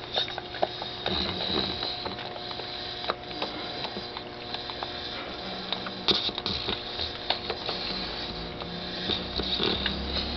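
Sleeping pet making quick, irregular clicking and smacking mouth sounds, chewing in its sleep as if dreaming of eating.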